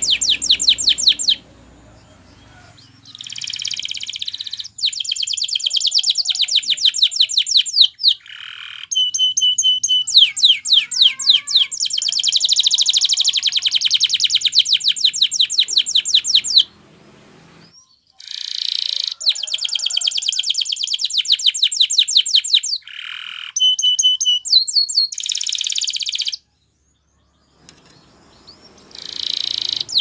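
Domestic canary singing Spanish Timbrado-type song: long phrases of very fast, rattling trills broken by short pauses, with a few clear held whistles between them.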